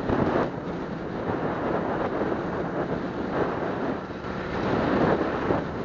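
Wind rushing and buffeting over the microphone of a moving Suzuki Smash 115 motorcycle, swelling and easing every second or so, with the bike's small single-cylinder four-stroke engine faint underneath.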